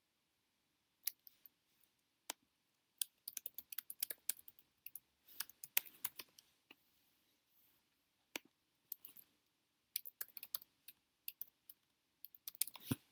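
Computer keyboard being typed on: quick runs of key clicks in irregular bursts, with short pauses between them.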